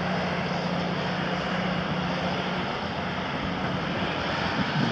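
Diesel engine of a Cat 352F hydraulic excavator, a 12.5-litre Cat C13, running steadily under hydraulic load as the machine swings and lifts its boom and bucket. Its steady drone weakens about three seconds in.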